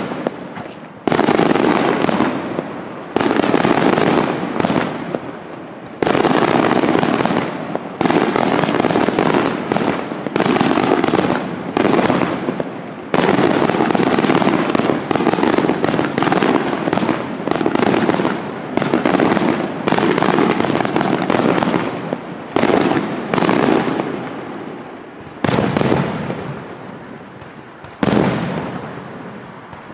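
Aerial firework shells bursting one after another in a continuous barrage, a sudden bang every second or two, each trailing off in a fading rumble before the next.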